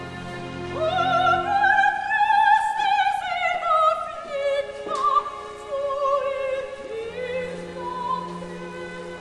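Background music: a high operatic voice singing long held notes with vibrato, rising and then falling, over orchestral accompaniment.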